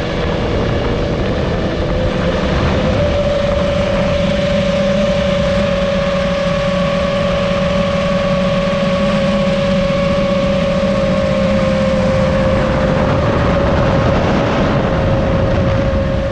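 FPV quadcopter's motors and propellers whining steadily in flight, recorded on board, over a broad rushing hiss. The pitch steps up slightly about three seconds in and then drifts gently.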